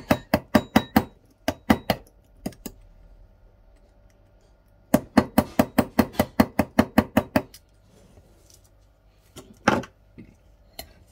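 Small hammer tapping a thin metal tool to drive a replacement Hall sensor into its tight slot in an ebike hub motor stator. Runs of sharp metallic taps, about five a second, in several bursts; the longest comes about halfway through, and a single last tap falls near the end.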